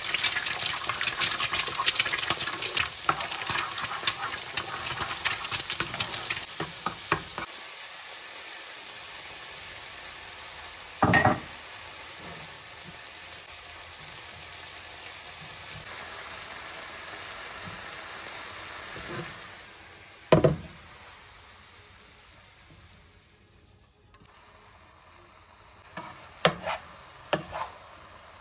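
Food frying in a pan: a sizzle with a utensil stirring and clattering against the pan for the first several seconds, then a steadier, quieter sizzle broken by two sharp knocks. Near the end come a few more clicks of the utensil.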